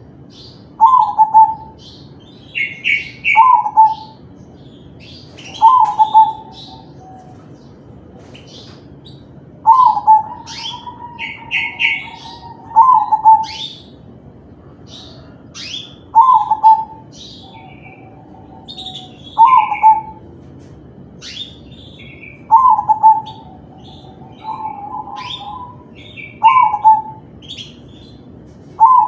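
Crossbred perkutut (zebra dove) cooing in its song (manggung), short loud phrases repeated about every three seconds, some trailing into a longer held note. Higher chirps sound in between.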